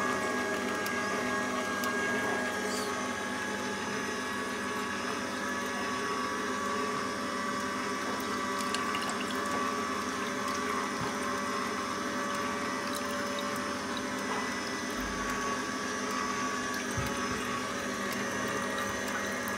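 Endever Sigma 95 slow auger juicer running with a steady motor hum as its auger presses orange pieces.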